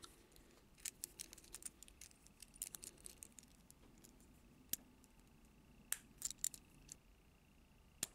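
Faint, scattered clicks and taps of small plastic toy vehicles and their packaging being handled, a dozen or so light knocks spaced irregularly.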